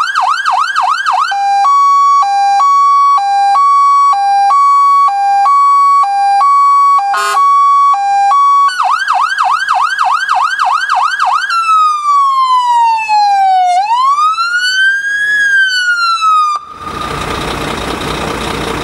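Scania P400 fire engine's siren run through its tones: a fast yelp, then a two-tone hi-lo alternating about three times a second with a short blast about seven seconds in, the yelp again, then a slow wail falling and rising. The siren cuts off suddenly about two seconds before the end, leaving the truck's diesel engine idling.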